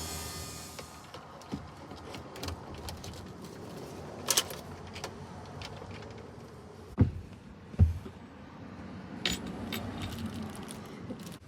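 Belongings being handled and packed into a minivan: scattered clicks and light clatter, with two heavier thuds about seven and eight seconds in.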